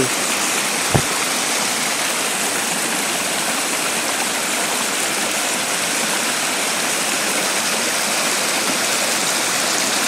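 Small forest stream splashing steadily down a run of little rock cascades, with a brief low bump about a second in.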